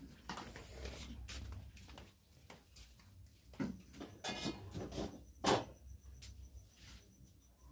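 A few scattered knocks and clicks, the sharpest about five and a half seconds in, over a faint low hum.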